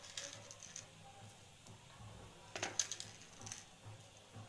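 Black peppercorns dropping and rattling into a small stone mortar: scattered faint clicks, with the loudest cluster a little before three seconds in.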